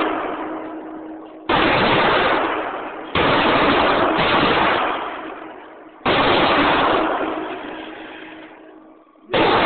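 Colt AR-15 rifle firing four single shots at an unhurried pace, one and a half to three seconds apart. Each report dies away slowly over a second or two.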